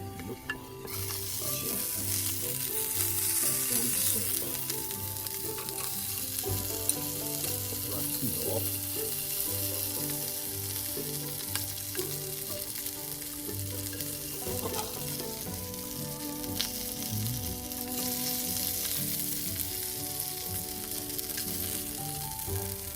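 Food sizzling in a hot frying pan, starting about a second in and carrying on steadily, over soft background music.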